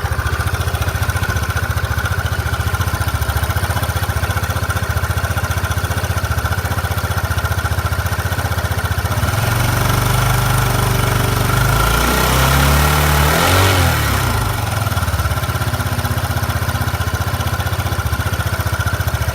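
Vehicle engine and drivetrain idling, revved up briefly about halfway through and then back to idle, with a steady high-pitched whine throughout. The noise is being recorded as an abnormal sound from the drivetrain.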